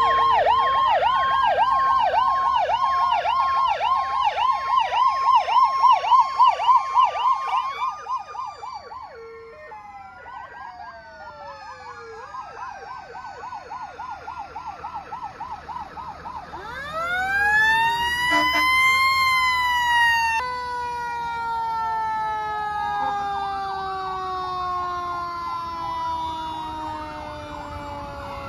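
Fire truck sirens passing one after another: a loud, fast-warbling yelp for the first several seconds fades away. About two-thirds of the way through, another siren rises in pitch, peaks and then slowly falls.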